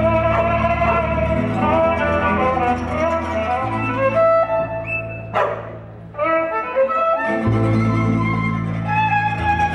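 Live gypsy-style acoustic trio: a bowed horn violin (Stroh-type violin with a brass bell) carries the melody over plucked double bass and acoustic guitar. About halfway through the bass stops for a couple of seconds and there is one sharp crack.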